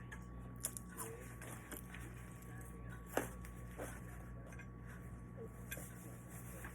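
Eating sounds at a meal: scattered small clicks and taps of eating and handling food and dishes, the loudest about three seconds in, over a steady low hum.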